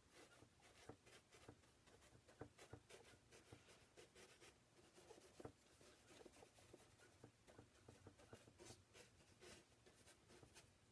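Faint, irregular scratching strokes and dabs of a flat bristle brush laying oil paint onto a painting panel.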